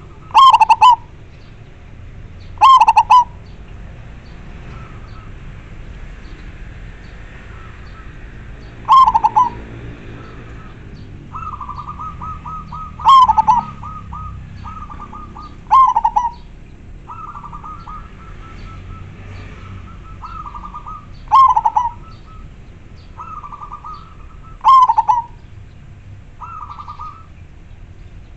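Zebra dove (perkutut) cooing in a clear, full voice: seven loud, short call phrases a few seconds apart. From about the middle on, softer rapid stuttering coos fill the gaps between them.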